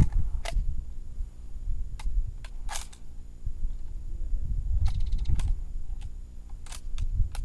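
A few sharp clicks and light knocks, with a quick run of ticks about five seconds in, over a low steady rumble.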